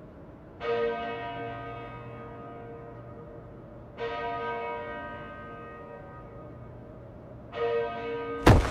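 A church bell tolling slowly, three strokes about three and a half seconds apart, each ringing on and fading away. Near the end comes a sharp, loud bang.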